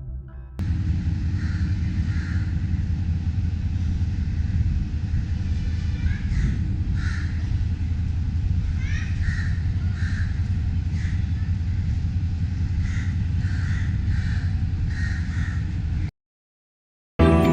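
Crows cawing, a dozen or so short calls, over a steady low rumble; the sound cuts off suddenly near the end.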